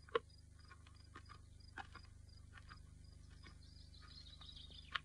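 Faint crickets chirping in an even rhythm, about three chirps a second, with a soft knock just after the start and another near the end.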